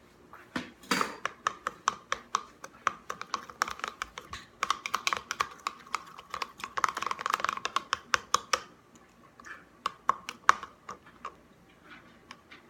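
A pencil stirring and jabbing in a container of water to break up and dissolve borax, making fast, irregular clicking taps against the container that stop about nine seconds in, with a few single taps after.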